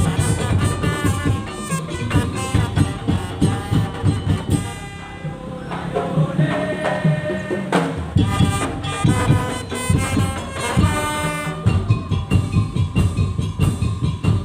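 Madurese tong-tong (daul) ensemble playing: dense, fast drumming under a melodic line. About five seconds in, the drums drop out for roughly two seconds while the melody carries on alone, then the drumming comes back in.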